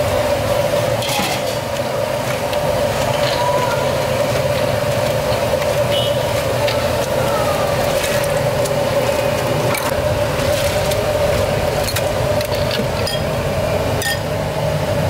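Metal ladle and ceramic soup bowls clinking now and then as broth is ladled out of a large stockpot, over a steady droning hum with a low rumble.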